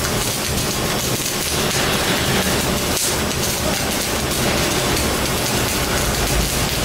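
Electric arc welding: a steady crackling hiss from the arc, with no breaks.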